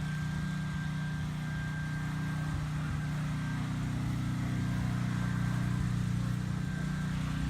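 A steady mechanical hum, like an engine or motor running at idle: an even low drone with a faint thin high whine over it.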